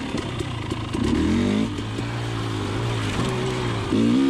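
KTM 300 XC TPI two-stroke single running through a Pro Circuit Type 296 spark-arrestor silencer, revving up and down under the rider's throttle, with the pitch climbing about a second in and again near the end.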